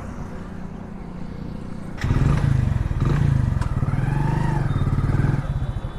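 A 100cc single-cylinder motorcycle engine running, getting suddenly much louder about two seconds in as the bike pulls away.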